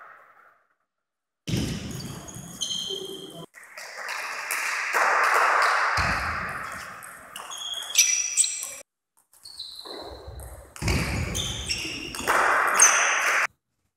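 Table tennis rally: the ball clicking sharply off rackets and table. There is a stretch of hissy noise in the middle, and the sound cuts out abruptly to dead silence a few times.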